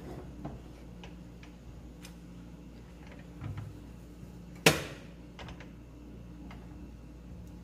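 Silicone spatula stirring thick sauce in a metal frying pan: a few soft clicks and scrapes against the pan, and one sharp knock about two-thirds of the way through, over a steady low hum.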